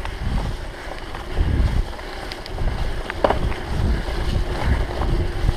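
Wind buffeting the microphone of a camera on a moving bicycle, an uneven gusty rumble, mixed with the rattle of a mountain bike rolling over a rough dirt trail. There is a sharper click or knock a little after three seconds in.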